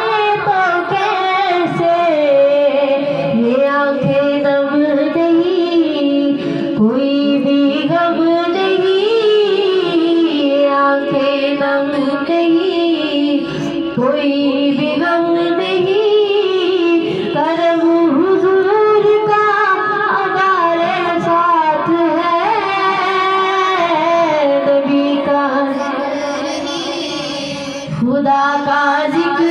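A woman singing a naat, an Urdu devotional song in praise of the Prophet, in long, drawn-out melodic lines, with a brief pause near the end before she carries on.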